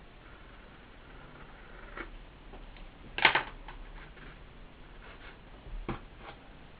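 Handling noise from a loudspeaker woofer worked on by hand on a workbench: a few scattered knocks and scrapes as the speaker is gripped and turned, the loudest knock a little past the middle and a duller thump near the end.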